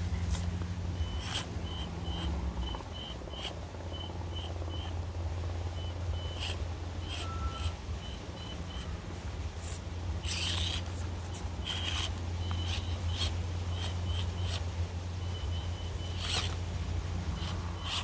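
Axial SCX24 Deadbolt micro crawler's small electric drivetrain whirring steadily as it crawls over rocks, with clicks and scrapes of its tyres and chassis on the stone, loudest about ten seconds in and again near the end. Runs of short, evenly spaced high chirps sound in the background.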